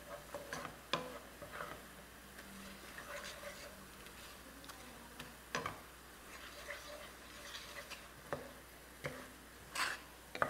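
A spatula stirring spice paste as it sizzles faintly in a frying pan, with scattered scrapes and light knocks of the spatula against the pan. The paste is being sautéed.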